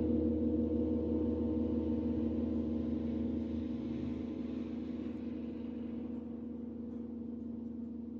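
Large gong ringing on after a single mallet stroke, its deep, steady hum of several low tones slowly fading away.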